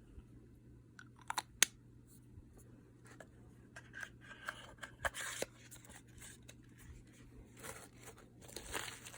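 Cosmetic packaging being handled: a couple of sharp clicks about one and a half seconds in, then scattered rustling and crinkling.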